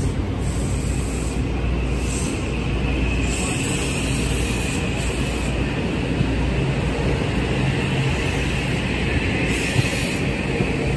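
Amtrak train approaching from a distance: a steady low rumble of the locomotive and wheels on the rails, with a faint thin high tone above it.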